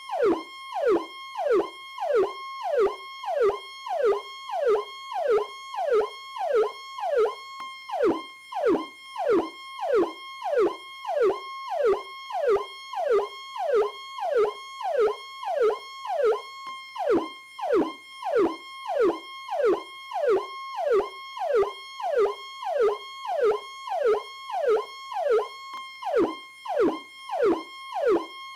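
PowerCall electronic police siren sounding a repeating pattern: quick falling sweeps in pitch, about two a second, over a steady held high tone.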